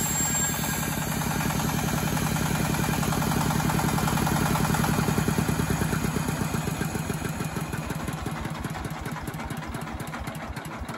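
25 hp single-cylinder Chinese diesel engine running, then slowing down from about halfway through as it is throttled back by hand. Its firing beats grow quieter and spread further apart near the end.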